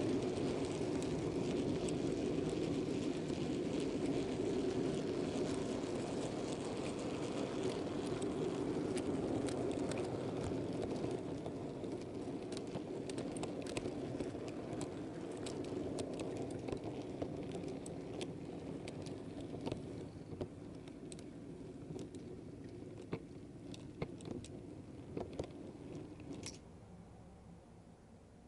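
Model freight train's wheels rolling along the track with a steady rumble, ticking over rail joints and points. The train slows, the rumble fades and the clicks come further apart, then it stops near the end.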